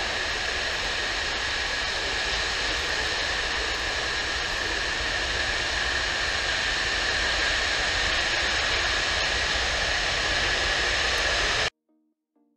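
Antonov An-225 Mriya's six turbofan engines running as the aircraft rolls past on the runway: a steady jet roar with a high whine, growing slightly louder, that cuts off suddenly near the end.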